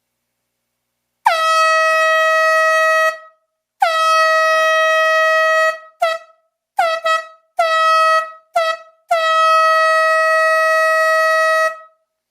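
Handheld marine/sports air horn sounding a series of loud, steady blasts at one pitch: two long blasts of about two seconds, then several short toots, then a final blast of nearly three seconds. Each blast starts with a brief squawk before settling on its note.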